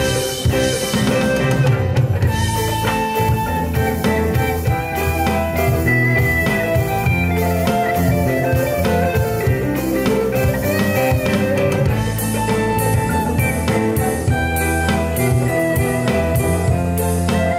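A live band playing a song, with electric and acoustic guitars over a drum kit. The drum strokes come through sharper and more regularly from about two-thirds of the way in.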